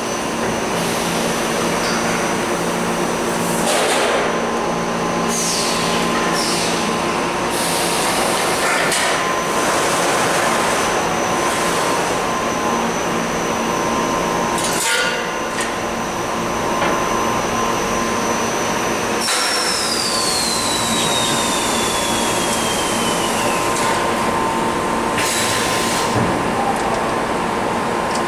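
Automatic laser tube-cutting machine running as it feeds a steel pipe through its chucks: a steady mechanical hum with a high tone, several brief rushes of noise and knocks, and a whine that falls in pitch about twenty seconds in.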